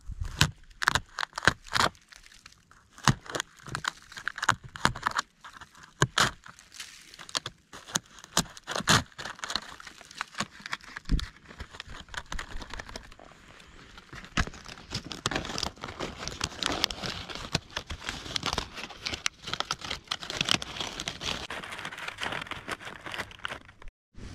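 A knife cutting into the bark of a dead birch trunk and prying a sheet of it loose: sharp cracks and snaps in the first half, then denser crackling and tearing as the bark is peeled away.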